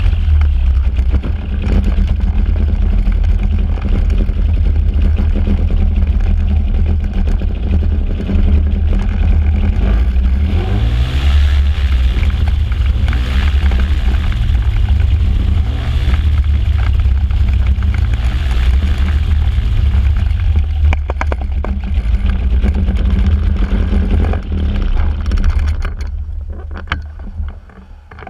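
Microlight trike's engine and pusher propeller running at low taxi revs, uneven and missing: the engine was misfiring at anything below full throttle. The revs rise a little about eleven seconds in, and near the end the engine is shut down and the propeller runs down.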